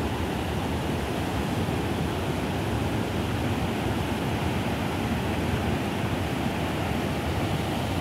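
Water pouring over a low stepped weir's spillway: a steady rushing noise.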